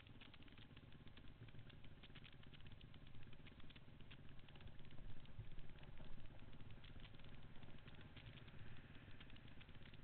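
Dirt bike engine heard muffled through a helmet-mounted camera, running low and then pulling away downhill, louder from about three seconds in, with constant fine rattling and clicking from the helmet and camera mount.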